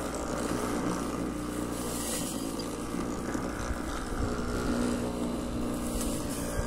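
Homemade electric lawn mower running: a 120 W 24 V scooter motor spins a brushcutter blade through the grass while hoverboard hub motors drive the wheels, giving a steady electric hum.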